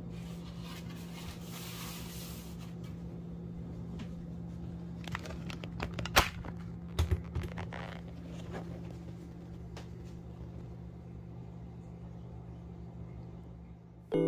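Handling noise from a plastic dashboard faceplate being moved about and set down on cardboard and packing foam: scattered rustling and light knocks, the sharpest about six seconds in and two more about a second later. A steady low hum runs underneath.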